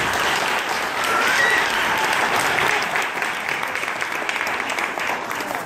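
Audience applauding, easing off slightly near the end.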